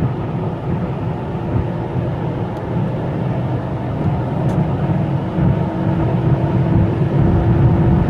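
Mercedes-Benz E240's M112 V6 engine pulling under full-throttle acceleration in fourth gear, growing gradually louder toward the end. The owner judges the sound normal for a warmed-up engine.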